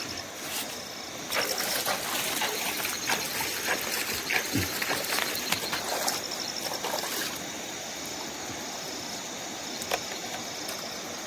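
Water splashing and trickling for about six seconds, with small clicks mixed in, then dying down to steady river noise, with crickets chirping faintly throughout.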